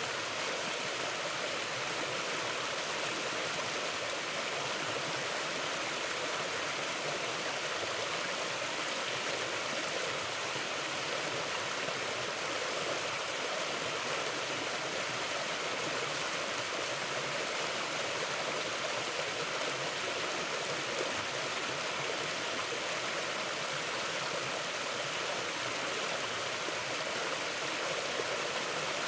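Mountain river flowing, a steady, even rush of water that does not change.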